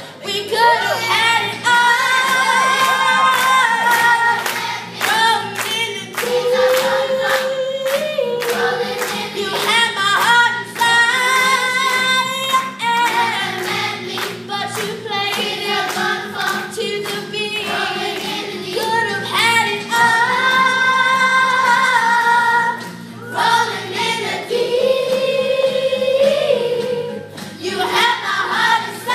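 Elementary school children's choir singing a song.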